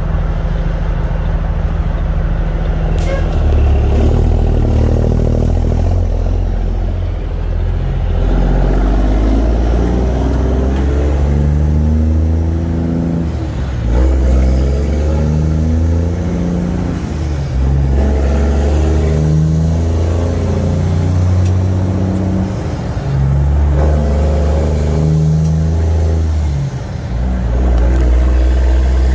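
Cummins heavy-duty diesel in a semi truck pulling under load. The engine note climbs and drops back several times, as with gear changes, with a faint high whistle rising and falling over the later part.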